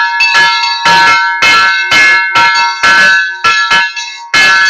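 Brass temple bells rung rapidly and unevenly, about two or three strikes a second, each strike ringing on into the next so the tones overlap continuously.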